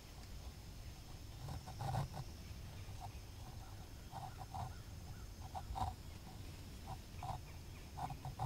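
Short animal calls, about a dozen at uneven spacing, over a low rumble.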